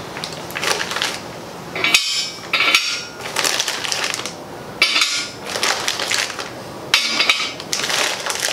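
Plastic packaging bag crinkling while small steel bender adapters and parts are unwrapped and handled, with a few sharp metal clinks and knocks as they are set down.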